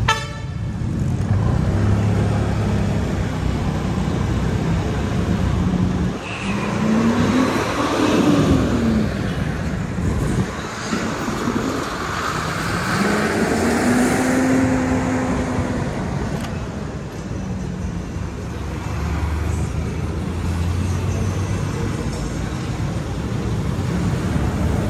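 Busy road traffic heard from a moving vehicle: steady engine and tyre noise. Twice an engine note rises and then falls in pitch as a nearby vehicle revs and pulls past.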